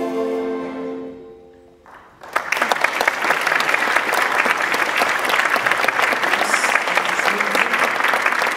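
The last held chord of a choir and band fades away, and about two seconds in the audience breaks into steady applause.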